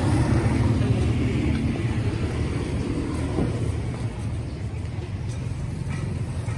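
A motor vehicle engine running close by with a low, steady rumble that slowly fades away.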